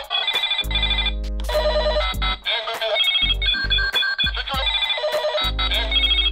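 Electronic toy walkie-talkie playing beeping, ringtone-like tunes and warbling tones from its speaker as its keypad buttons are pressed, in short runs with brief pauses.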